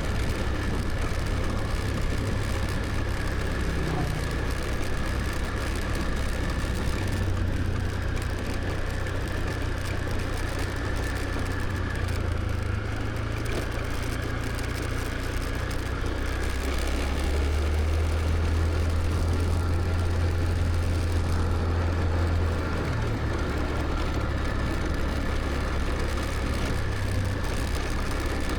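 Scooter's small engine running steadily under way, with road and wind noise. The low engine note grows louder for a few seconds a little past the middle, then eases back.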